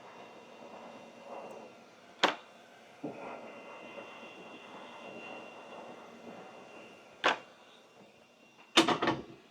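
Hot-air rework station blowing steadily with a faint high whine while desoldering a PS5's HDMI port, broken by sharp clicks: one about two seconds in, another about seven seconds in, and a quick cluster near the end.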